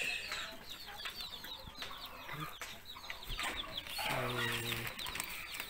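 Chickens clucking, with a busy run of short, quick high chirps throughout and one longer low drawn-out call about four seconds in.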